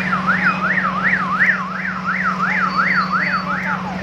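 Emergency vehicle siren in a fast yelp, rising and falling about three times a second, fading out near the end, over a steady low hum.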